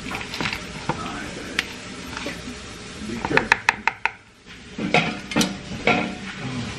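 A spoon scraping and clinking against a mixing bowl, with a quick run of about five taps around three and a half seconds in, as food is knocked off the spoon.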